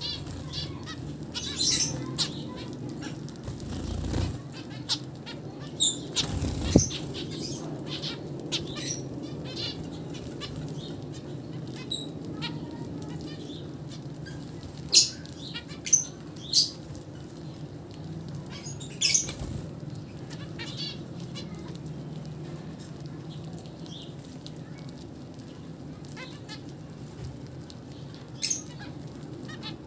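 A flock of zebra finches feeding close together, giving short high calls scattered all through, with wing flutters as they jostle; a few louder calls stand out around the middle and once near the end.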